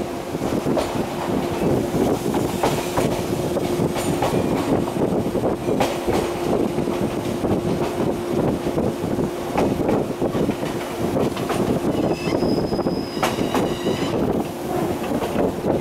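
Electric train running along the line, heard through an open carriage window: wheels clacking over the rails with a steady low hum underneath. Near the end comes a brief high-pitched wheel squeal.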